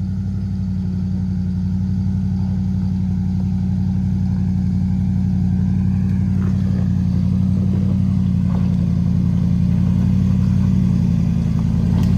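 Off-road vehicle's engine pulling steadily under load up a steep dirt trail, a low steady drone that grows slightly louder as it climbs.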